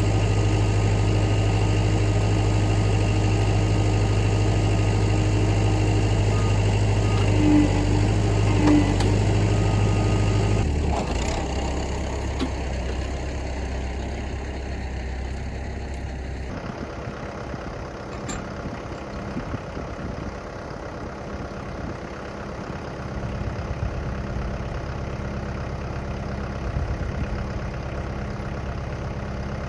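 An engine running steadily at idle. It drops in level about ten seconds in and changes tone again a few seconds later.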